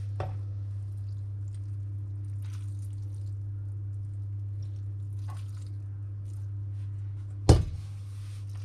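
Lukewarm milk being poured and spread over day-old bread rolls for bread dumplings, with faint wet squishing and dripping over a steady low hum. A single sharp knock about seven and a half seconds in.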